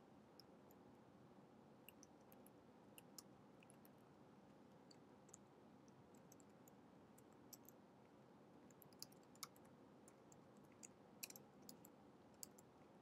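Faint computer keyboard keystrokes, scattered and irregular, with a quicker cluster of clicks in the last few seconds, over quiet room tone.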